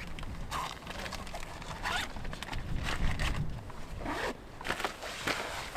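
A zipper being pulled in several short runs, with rustling of bags and gear, as a backpack is packed.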